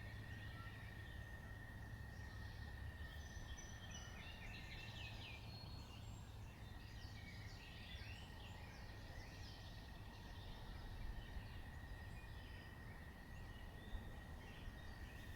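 Quiet early-morning outdoor ambience: scattered distant birds chirping over a low steady rumble, with a faint steady high-pitched tone throughout.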